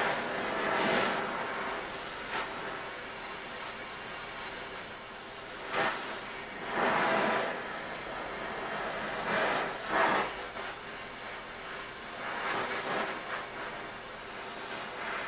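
Acetylene torch flame hissing steadily against a cherry-red steel bar while heating it to melt silver solder, swelling louder several times for about a second each.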